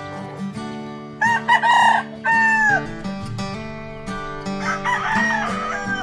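A gamefowl rooster crowing once, about a second in, the crow ending on a falling note. A fainter rooster call follows near the end, over steady background music.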